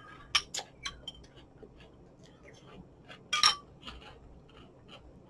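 Spoon clinking against a bowl while eating cereal: a few light clicks and taps, with one louder ringing clink about three and a half seconds in.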